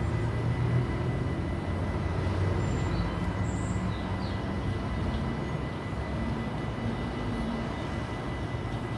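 Steady low rumble of rail and road traffic at a Dutch railway level crossing, with a thin steady high tone running over it.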